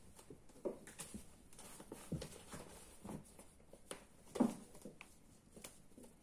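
Ragdoll kittens play-fighting: scattered soft thumps and scuffles of paws and bodies on carpet, with the crumpled sheet they are pouncing on rustling. The loudest thud comes about four seconds in.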